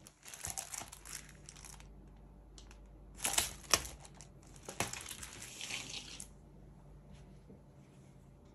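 Packaging being handled and opened: two stretches of crinkling and rustling, the second with a few sharp clicks.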